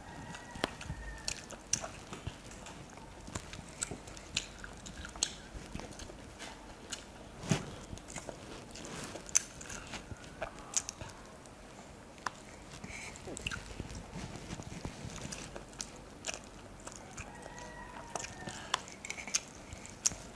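A person chewing rice and chicken curry eaten by hand, with wet mouth smacks and irregular sharp clicks scattered throughout, along with fingers squishing the rice on the plate.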